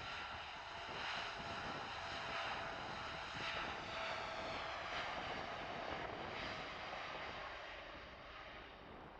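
Boeing 787-9 jet airliner arriving, its engines a steady rushing jet noise with faint high whine lines slowly falling in pitch as it passes, easing off slightly near the end.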